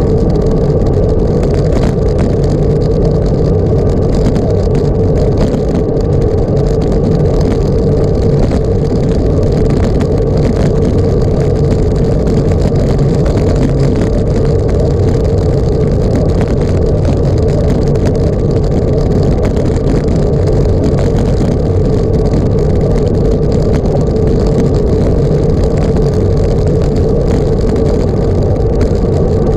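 Engine running steadily at a constant pitch under heavy, even low rumble.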